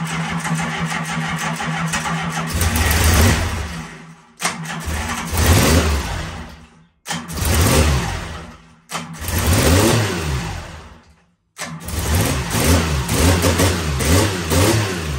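Triumph T160 Trident's 750 cc three-cylinder engine running on its first start after 33 years in storage, revved in rising and falling blips. Four times the sound dies away to silence and then picks up again abruptly. It is not running quite right, which the owner suspects may be a faulty ballast resistor.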